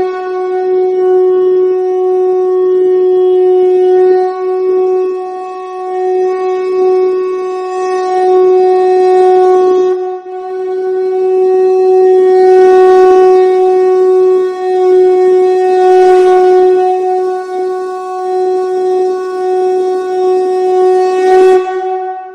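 Shankha (conch shell trumpet) blown in one long, loud, steady note, held for over twenty seconds with a brief dip about ten seconds in, ending near the end.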